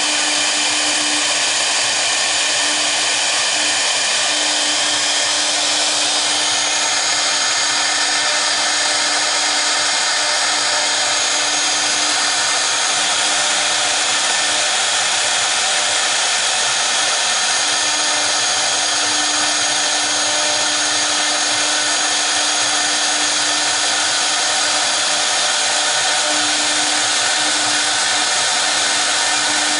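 Both spindles of a double-spindle CNC router running at once, their V-bits engraving into a board: a loud, steady whine and hiss of spinning spindles and cutting bits.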